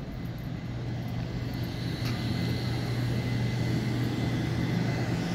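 Vacuum cleaner running on carpet: a steady motor drone with a faint high whine, slowly growing louder.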